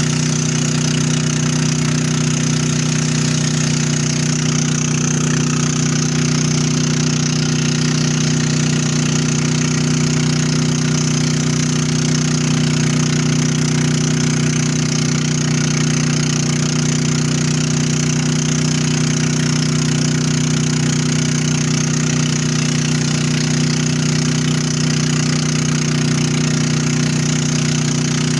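Motorboat engine running steadily at speed, a constant low hum, with water rushing past the hull.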